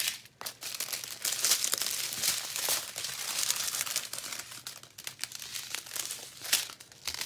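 Small plastic zip-top bags of diamond painting drills crinkling and rustling as a strip of them is handled, with many small clicks; the handling is busiest in the first half and thins out near the end.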